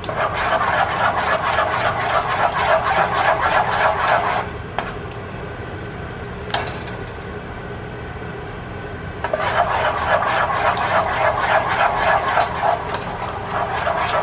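Silicone spatula stirring thick cheese sauce in a saucepan: quick, wet scraping strokes against the pot in two bouts, with a pause in the middle while the spatula is lifted out and one small click during it.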